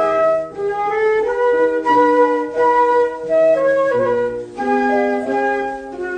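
Instrumental break in a children's song: a flute-like melody of short held notes over a bass line, without singing.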